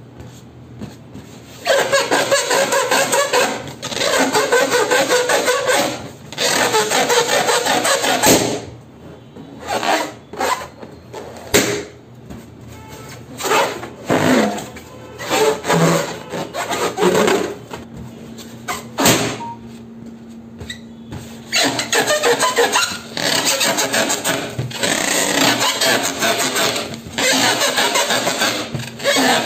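Inflated latex balloons rubbed and squeezed by hand, squeaking in bursts of about two seconds each, with a few sharp clicks in the quieter gaps.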